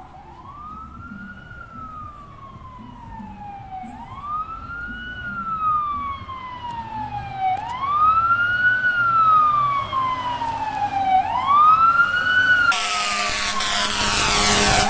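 Fire truck siren in a slow wail: each cycle rises quickly, then falls slowly, about every four seconds, growing louder as the truck approaches. Near the end a loud, dense noise from the nearing truck comes in over the siren.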